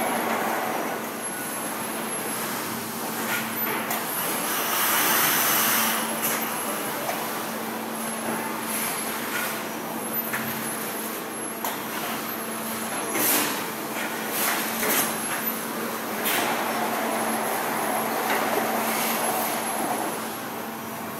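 Factory-floor machinery noise: a steady din with a constant low hum, a loud hiss about five seconds in, and a few sharp metallic knocks later on.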